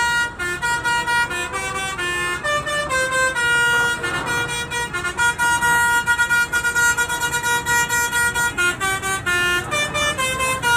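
Bus 'telolet' Basuri multi-tone musical air horn playing a tune in stepped notes, holding a long chord in the middle and ending in a run of quick short toots.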